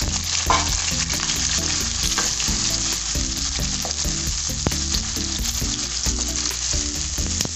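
Sliced onions sizzling in hot oil in a nonstick wok, just added and starting to fry, while a wooden spoon stirs them. There are a few light knocks and scrapes of the spoon against the pan.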